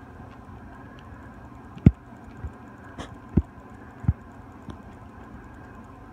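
A faint steady hum with a few dull low thumps about a second apart, the first the loudest.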